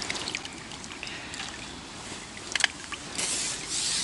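Water trickling and splashing around a just-landed mirror carp, with a couple of sharp clicks about two and a half seconds in.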